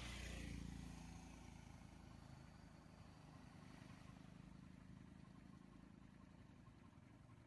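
Quiet, steady hum of a vehicle engine running, with a louder rush of noise at the start that dies away within about a second.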